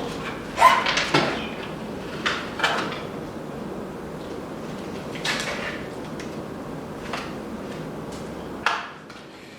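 A car's front shroud being worked loose and lifted off the front end: a handful of sharp knocks and clatters of parts against each other, spread out over several seconds.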